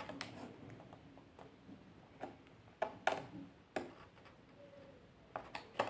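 Scattered light clicks and taps, about eight over a few seconds, from handling a new selfie stick and its plastic parts.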